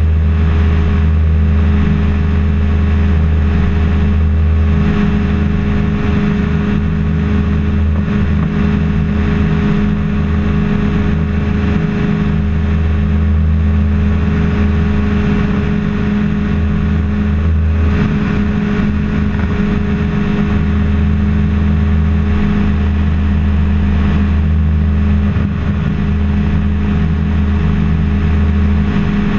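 Challenger II ultralight's pusher engine running steadily in level cruise flight, a constant low drone over a rush of air.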